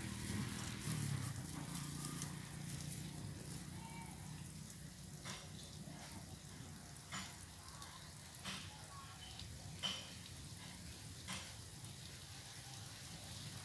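Quiet riverbank ambience: a faint steady hiss, with five short sharp clicks about every second and a half in the second half.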